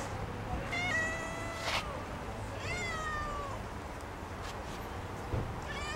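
Domestic cat meowing: two long drawn-out meows about two seconds apart, the second sliding down in pitch, with a third meow starting near the end.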